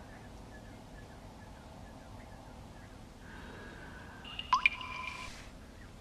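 Water drops plinking: two quick drops about four and a half seconds in, each with a rising pitch, over a faint steady hiss.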